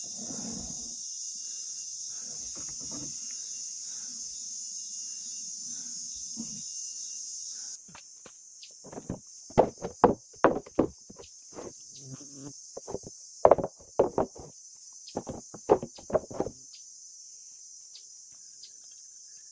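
Steady high drone of insects, louder for the first eight seconds or so. After that comes a run of sharp, irregular knocks, the loudest sounds, which stop about sixteen seconds in.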